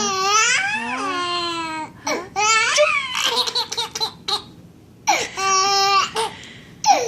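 A 7.5-month-old baby laughing in high-pitched, squealing runs, broken by short pauses about two seconds and about five seconds in.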